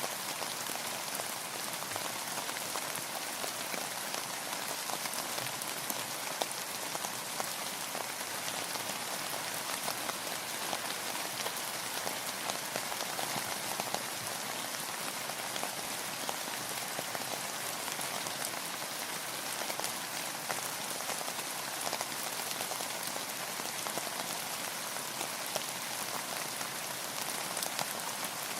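Steady rainfall: a dense, even hiss of rain with many small drop ticks on a surface, unchanging throughout.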